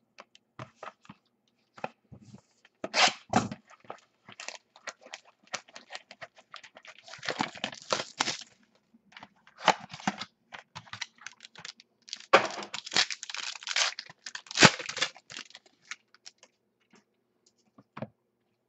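Cardboard trading-card box being opened and its paper packing handled: irregular tearing, scraping and crinkling, with a few sharp clicks.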